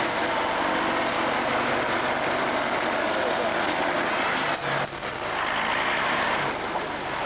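Scammell Explorer 6x6 recovery truck's engine running hard as the truck works over rough trials ground, with a steady low drone under loud, dense noise. The noise briefly dips just under five seconds in.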